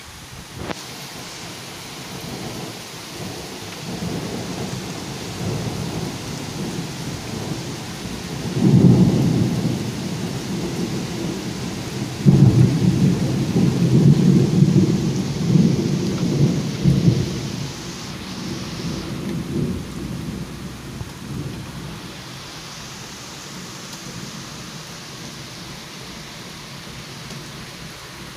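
Thunder rumbling over the steady hiss of rain. A rumble builds to a loud peak about nine seconds in, then a longer, louder rumble comes from about twelve to seventeen seconds before fading away.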